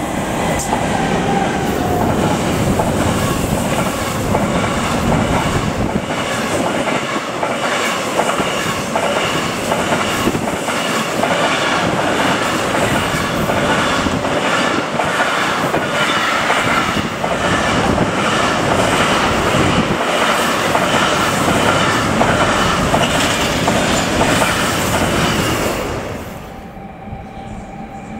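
BLS Re 485 electric locomotive passing close, hauling a long intermodal freight train whose pocket wagons clatter rapidly over the rail joints with a steady high squeal above the rumble. The noise drops off suddenly near the end.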